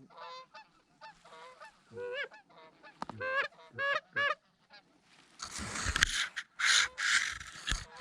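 Canada goose honks: a quick series of short honks that rise and fall in pitch over the first five seconds. About five and a half seconds in, a loud rushing, hissing noise takes over until near the end.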